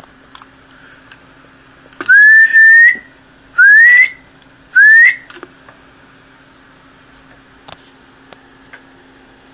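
A person whistles three rising notes, the first the longest, into the microphone of a Ranger AR-3500 transceiver, driving the sideband transmitter into a dummy load for a power-output test. Under the whistles there is a faint steady hum.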